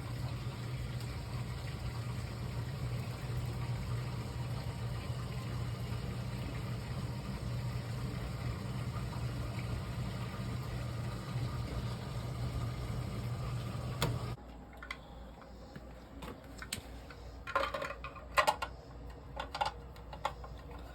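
Well pump motor running with a steady hum, then a sharp click about 14 seconds in as it shuts off, typical of the new pressure switch cutting out at pressure. A few light knocks follow.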